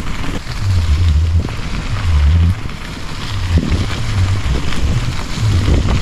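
Wind buffeting the microphone of a camera on a moving mountain bike, in uneven low rumbling gusts, over the hiss of the tyres rolling on a dirt trail, with scattered clicks and rattles from the bike over bumps.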